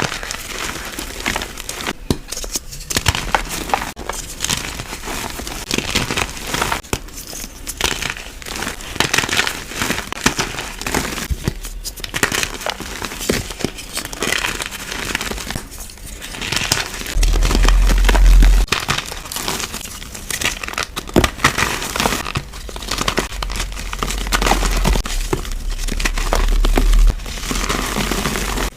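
Chunks of powder (gym chalk or cornstarch) being crushed and crumbled by hand, a dense run of crunchy crackling and squeaky crumbling. Heavier pressing adds a low rumble about two-thirds of the way through and again near the end.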